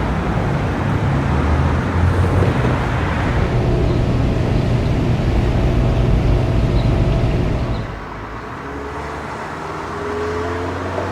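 Motor vehicle sound from a transportation field recording: a steady low engine rumble. About eight seconds in it drops in level and changes to a quieter rumble with faint rising whines.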